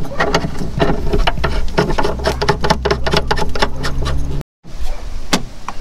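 Hands working plastic fender trim and antenna cable in the gap behind a Jeep Wrangler JL's fender: a rapid, irregular run of scratches and clicks over a steady low hum, cutting out abruptly for a moment about four and a half seconds in.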